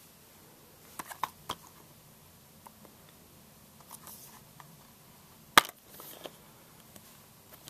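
Plastic Blu-ray cases being handled: a few light clicks about a second in, faint rustling, and one sharp snap of a case a little past halfway.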